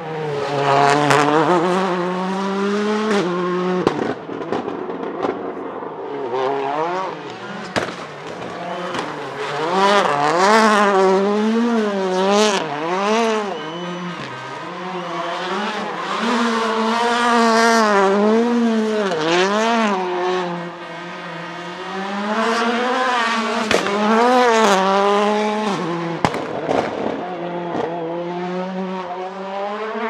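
Audi S1 RX rallycross car's turbocharged four-cylinder engine revving hard, its pitch swinging up and down over and over, with occasional sharp anti-lag bangs from the exhaust.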